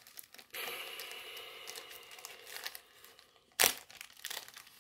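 Crinkly plastic being handled during trading-card handling. A steady rustle lasts about two and a half seconds, then one sharp, loud crackle comes about three and a half seconds in, followed by a few lighter rustles.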